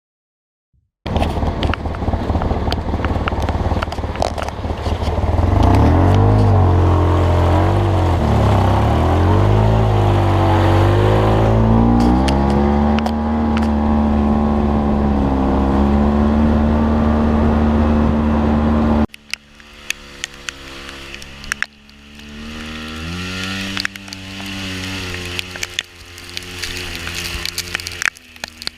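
Off-road vehicle engine running loud, its revs rising and falling. About nineteen seconds in it cuts abruptly to a quieter engine sound with scattered knocks and clicks.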